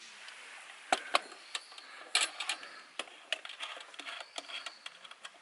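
Irregular series of small clicks and knocks from camp gear being handled, about a dozen sharp ones over several seconds, the loudest pair about a second in.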